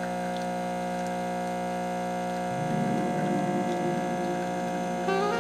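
Breville Infuser espresso machine's pump running with a steady electric hum while pulling a shot of espresso.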